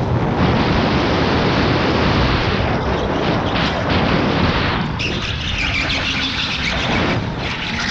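Onboard noise of an electric go-kart lapping fast, with wind rush on the microphone and tyre noise on the track. The sound turns harsher and brighter about five seconds in, as the kart goes through a tight corner.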